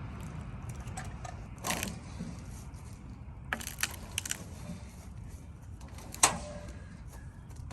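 Scattered metal clanks and knocks over a low steady rumble as pine logs are handled onto a Wood-Mizer sawmill. The loudest is a single ringing clank about six seconds in.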